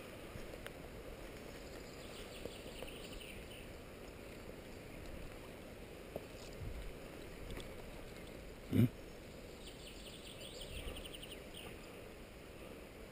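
A songbird sings two quick trills of rapidly repeated high notes over a steady low rustle from a body-worn camera as its wearer moves through woodland. One short loud thump comes about nine seconds in.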